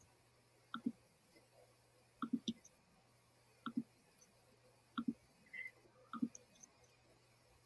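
Faint computer mouse clicks, about five short double clicks spaced a little over a second apart, over a low steady hum.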